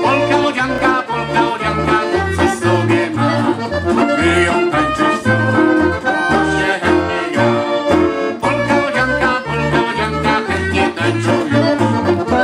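Live polka by a folk band: accordion and clarinet carrying the tune over strummed guitars, with the bass notes alternating on a steady oom-pah beat. Instrumental, with no singing.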